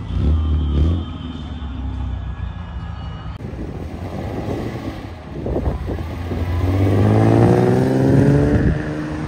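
Car engines leaving a show: a short loud rev right at the start, then a car accelerating away, its engine pitch climbing steadily for about two seconds before easing off near the end.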